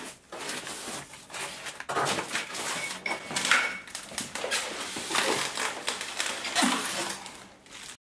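Polystyrene foam packaging being opened and handled: foam scraping against foam with short squeaks, along with plastic wrapping rustling and a few light knocks.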